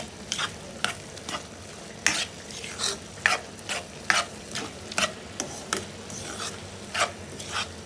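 Spatula scraping and stirring a shellfish sisig in a wok, about two scrapes a second over a steady frying sizzle.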